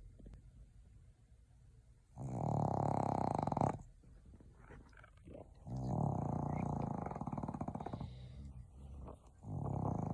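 Snoring: three long, loud snores with quieter breathing between them, the last beginning near the end.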